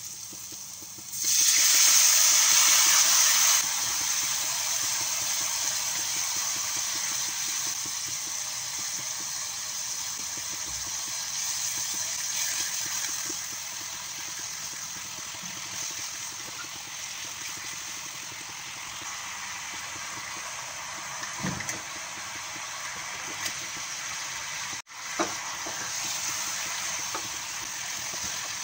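Soy sauce poured into a hot pan of sautéed garlic, shallots and chili, hitting with a loud sizzle about a second in, then settling to a steady, quieter sizzle as the sauce cooks. Later, chicken wings are tipped into the sauce with a few soft knocks, and the sizzling goes on.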